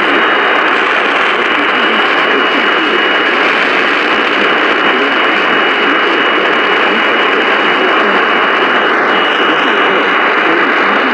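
Radio receiver static: a steady, loud hiss with a faint high whistle held under it, no programme audible.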